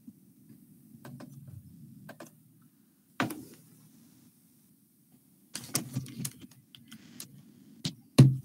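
Scattered clicks and taps at a computer: a few single ones, then a quick cluster, the loudest near the end, over a faint low hum.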